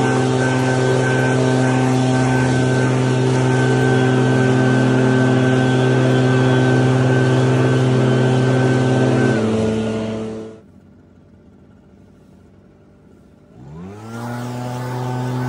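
Echo two-stroke gas backpack leaf blowers blowing leaves at full throttle, a loud, steady drone. About nine seconds in the pitch dips and the sound falls away sharply. After about three quieter seconds a blower engine revs back up to full speed.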